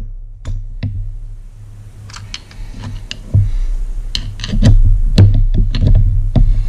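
Irregular small metallic clicks and taps from a steel punch being worked against the lower ball bearing inside an outboard's lower crankshaft end cap, driving the bearing out. The taps get busier and louder from about two seconds in, over a steady low hum.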